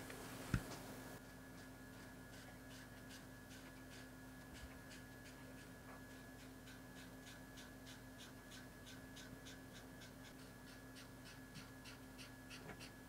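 Faint, quick back-and-forth strokes of a felt-tip brush pen colouring on paper, about three strokes a second, over a steady faint hum. A soft tap about half a second in.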